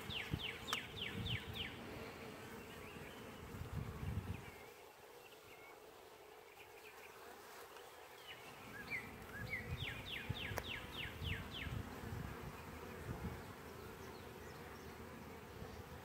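Honey bees buzzing over the open frames of a hive under inspection, a steady hum. A bird's quick trill of repeated notes cuts in at the start and again about ten seconds in.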